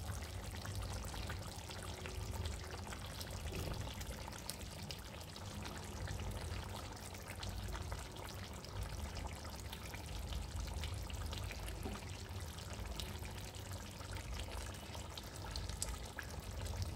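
Chicken curry simmering in an open kadai on a gas stove: a soft, steady bubbling with small scattered pops.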